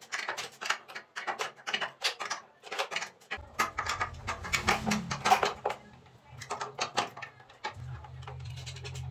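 Rapid metallic clicking of a wrench working the nuts on a water heater's heating-element flange, several clicks a second. A low hum sits underneath from about a third of the way in, and the clicks thin out near the end.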